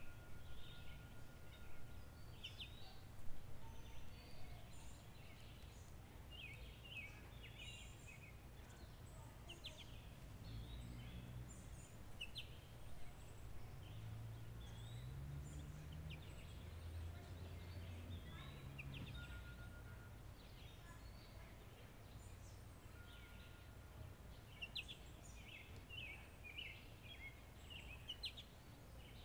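Rural outdoor ambience: many small birds chirping and calling over a steady low rumble. In the middle a low droning sound swells, rises and falls in pitch, then fades.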